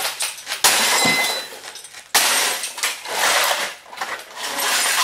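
A television cabinet being smashed apart: two heavy blows, about half a second and two seconds in, each followed by cracking and rattling of broken plastic and loose pieces, with more clattering near the end.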